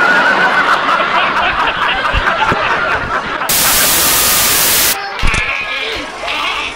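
Laughing, chattering voices, then about three and a half seconds in a burst of static hiss that lasts about a second and a half and cuts off sharply, followed by quieter mixed sound.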